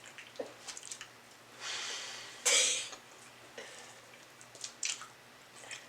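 Close-up eating sounds of fried chicken being chewed, with small wet clicks and crackles throughout. A short, louder burst of noise comes about two and a half seconds in.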